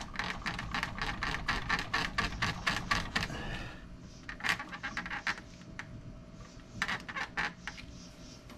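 Plastic squeaking and clicking from a steering wheel being rocked back and forth to free it from its column. There is a fast run of clicks for the first three seconds or so, then a few short spells of clicks.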